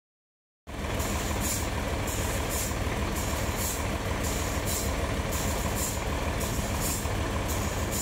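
A heavy machine running steadily with a low rumble. It cuts in abruptly under a second in, with a high hiss pulsing about twice a second over it.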